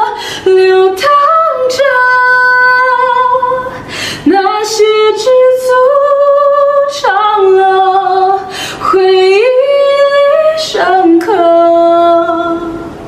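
A woman singing a Mandarin song unaccompanied, in phrases of long held notes that slide up and down between pitches, with short gaps between phrases.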